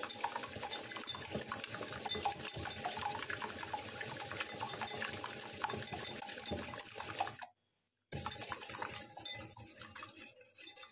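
Wire balloon whisk beating a runny egg mixture in a ceramic bowl: rapid clicking of the wires against the bowl with liquid sloshing. The sound breaks off for a moment about seven and a half seconds in, then the whisking goes on more quietly.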